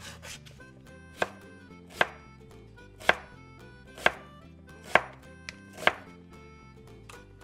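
Chef's knife chopping through onion and green bell pepper onto a plastic cutting mat: six sharp chops, about one a second, over faint background music.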